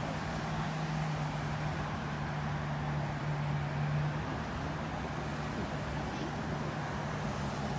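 Steady low engine hum holding one tone, a little louder about halfway through, over a faint outdoor background noise.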